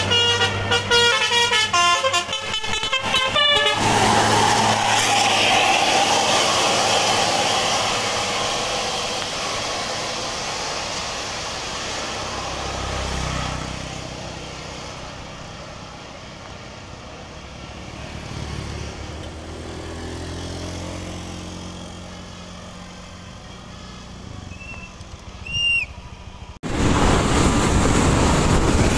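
Bus telolet horn playing a fast multi-note tune for the first few seconds, then a bus engine running as the noise slowly fades. Near the end a brief high toot, then a sudden loud rush of noise.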